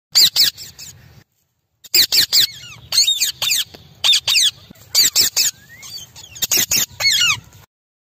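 Rose-ringed parakeets calling: quick runs of shrill, squeaky calls, each note falling in pitch, coming in bursts with short breaks between them.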